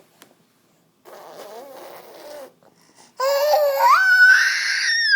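Baby's voice: a quieter wavering fussing babble, then about three seconds in a loud, high-pitched cry that rises in pitch and holds.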